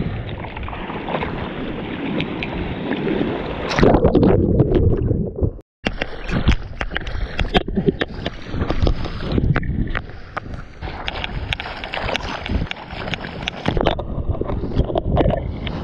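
Water rushing and splashing against a surfboard right by a GoPro Hero 7, with wind on the microphone. The loudest rush comes about four to five seconds in, the sound cuts out for a moment just before six seconds, and then hand paddle strokes splash through the water with many sharp splashes and drips.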